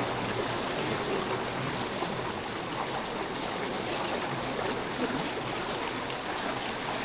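Fast-flowing jungle river rushing steadily over rocks, an even wash of water noise.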